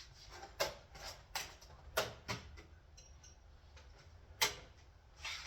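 A pick working a stuck lifter out of its bore in a 318 V8 block: a series of sharp little metallic clicks and taps at uneven intervals, the loudest about four and a half seconds in.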